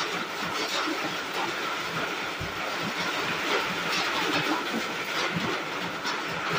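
Steady rain hissing and pattering on the roof, with a dense crackle throughout.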